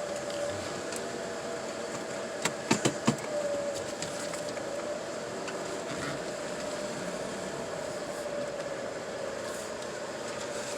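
Steady hum inside an idling car, with a constant tone and a few sharp clicks about two and a half to three seconds in.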